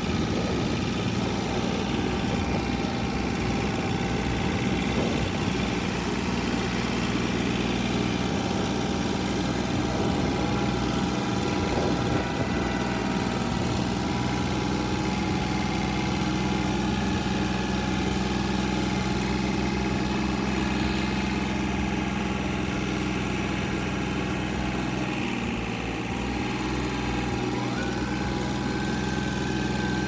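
Compact tractor engine running steadily as the tractor drives along, with a slight step up in pitch near the end.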